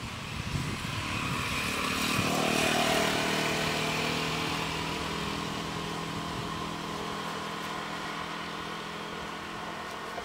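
A motor vehicle's engine running steadily, growing louder to a peak about three seconds in and then slowly fading, like traffic passing on a road.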